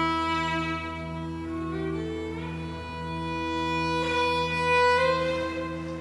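Orchestral film-score music with bowed strings: slow, held notes over a steady low drone, the melody stepping up to a new note about two seconds in and again near the end.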